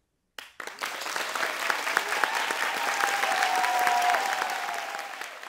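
Audience applauding, breaking out suddenly about half a second in, swelling, then beginning to fade near the end. A long, high held note rises above the clapping in the middle.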